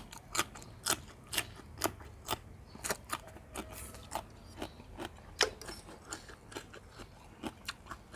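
Close-up crunchy chewing of raw young leucaena shoots. Sharp, separate crunches come at about two a second.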